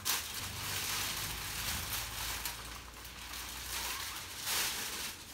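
Hand pump sprayer misting liquid onto the adhesive side of a windshield protection film, a steady hiss that swells in pulses, strongest a little before the end.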